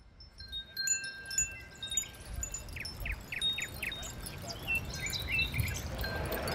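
Sparse, high, chime-like electronic tones at scattered pitches from the small speakers of networked light-and-sound sculpture cloudlets. About two and a half seconds in they give way to a run of short quick sweeps.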